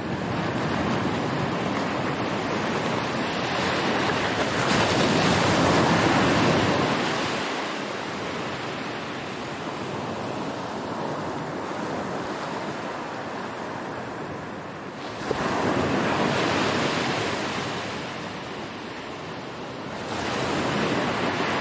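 Ocean surf: waves wash in and fade in slow swells, with a sudden louder wave about fifteen seconds in and another rising near the end.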